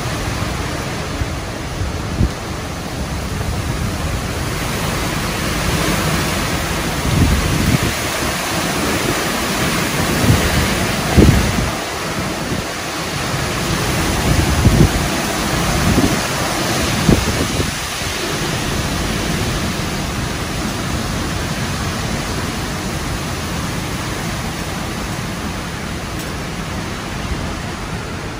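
Hurricane wind and driving rain: a steady rush of noise, with stronger gusts rumbling and buffeting the microphone from about a quarter of the way in until past the middle.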